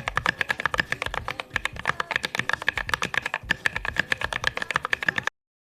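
Fast typing on a small 40% mechanical keyboard, a rapid run of clompy keystrokes that stops suddenly near the end.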